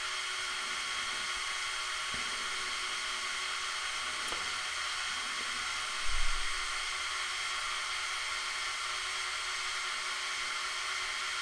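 Electric motors of a Mould King 17007 brick-built Liebherr LTM 11200 crane model running steadily with a high whine as they drive the telescopic main boom out, running smoothly. A short low thump comes about six seconds in.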